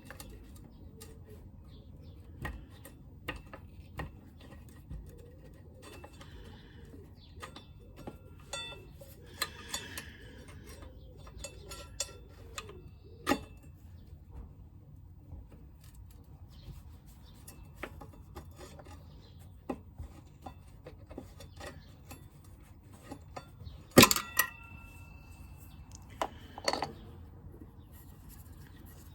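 Scattered clicks, taps and metallic clinks of hand tools and brake parts being handled at a motorcycle brake caliper, some clinks ringing briefly. The loudest is a sharp metal clink about 24 seconds in, with a second cluster about two seconds later.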